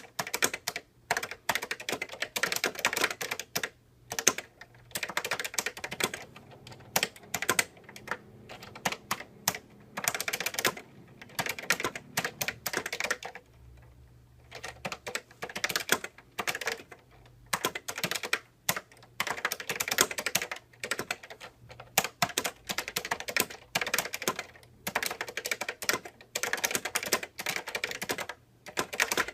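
Typing on a 1983 Epson QX-10 keyboard with Fujitsu second-generation leaf-spring linear switches, each keystroke bottoming out on hard rubber dampers. Rapid runs of key clacks come in bursts with short pauses, and a longer pause about halfway through.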